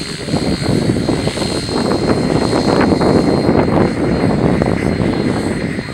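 Radio-controlled model helicopter flying low: a loud rush of rotor and motor noise under a thin, steady high whine. It grows louder about two seconds in and eases off near the end.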